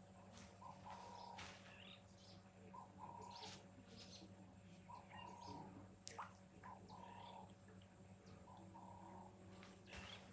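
A bird calling faintly, a short low two-part call repeated about every two seconds, with a few faint clicks among the calls.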